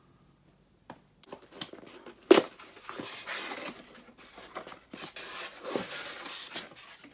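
Cardboard gift box of a mug being torn and pulled open by hand: a sharp snap about two seconds in, then several seconds of rustling and tearing of the packaging.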